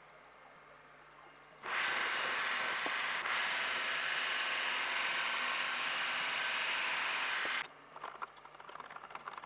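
A drilling machine boring into the cast-iron saddle of a Myford ML7 lathe: a steady, noisy whir with a thin high whine that starts abruptly about a second and a half in and stops abruptly about six seconds later. Faint irregular clicking follows near the end.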